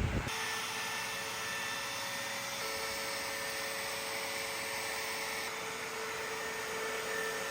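Steady machine whir with a faint high whine, starting abruptly just after the start and holding even throughout.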